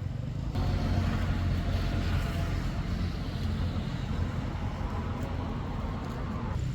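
An engine running steadily: a low hum with a hiss over it, growing louder about half a second in.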